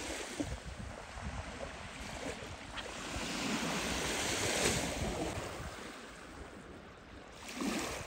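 Small Black Sea waves washing on a pebble shore, swelling to their loudest in the middle and falling away near the end.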